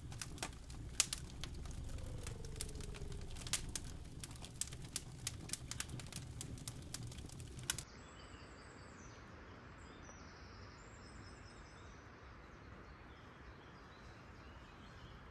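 Wood campfire crackling and popping: many sharp snaps over a low rumble of the flames. About eight seconds in, it cuts to a quieter steady outdoor background with faint bird calls.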